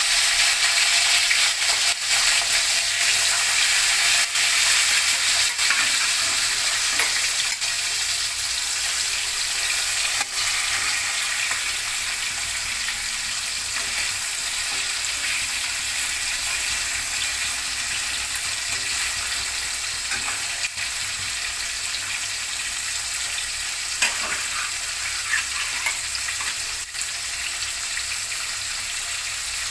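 Rohu fish pieces, rubbed with salt and turmeric, sizzling as they fry in hot mustard oil in a kadai. The sizzle is loud and steady and eases a little over time, with an occasional light tap.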